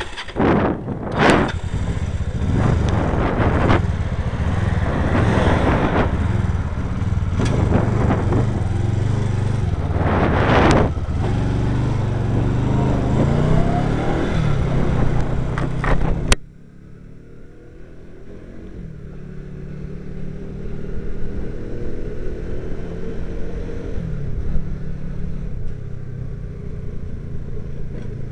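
Motorcycle engine running on the move, buried for the first half under loud rushing noise and a few knocks on the microphone. About sixteen seconds in, the rushing cuts off suddenly and the engine comes through more clearly, its pitch rising and falling with the throttle.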